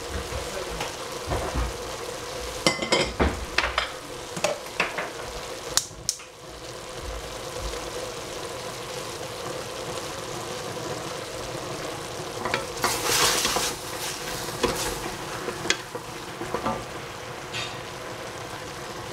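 Cabbage and tofu frying in oil in a pan with a steady sizzle, and a utensil clinking and scraping against the pan as it is stirred. The sizzle and stirring grow louder for a second or so about thirteen seconds in.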